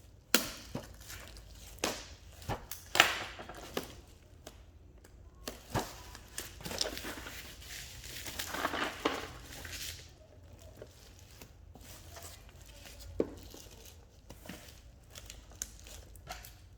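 A cardboard keycap box being unwrapped and opened by hand: scattered sharp taps and knocks, with rustling and scraping of the packaging that is loudest for a few seconds in the middle.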